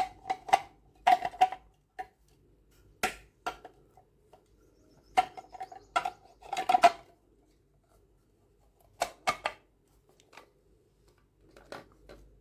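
Plastic parts of a cold-press juicer being fitted together: scattered clicks, knocks and rattles in short clusters, with quiet gaps between them.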